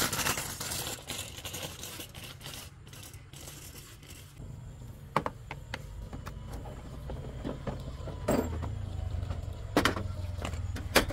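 A small engine running steadily with a low rumble, with a few sharp clicks and knocks over it, the loudest near the end.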